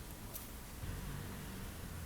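Wind buffeting the microphone outdoors, a low uneven rumble over a steady hiss, growing a little stronger about halfway through.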